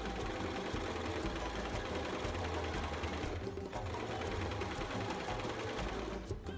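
Singer electric sewing machine running steadily as it stitches a seam in cotton fabric, easing off briefly about halfway through.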